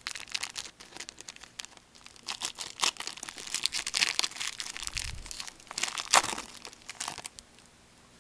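Plastic packaging and trading cards being handled: rapid, irregular crinkling and rustling with a soft low bump about five seconds in, stopping shortly before the end.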